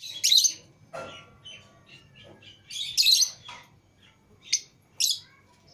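Lovebirds, Fischer's and lutino, chirping in short shrill bursts, the loudest near the start and about three seconds in, with softer chirps between.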